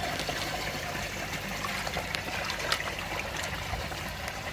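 Water trickling and running steadily, with scattered faint ticks.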